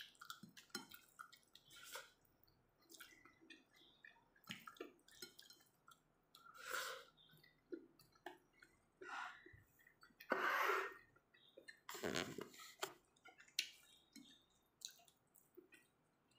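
Eating by hand: small wet mouth clicks, lip smacks and chewing, with fingers working through a bowl of rice, bamboo shoots and prawns. A few short, louder mouth noises come about seven, ten and twelve seconds in.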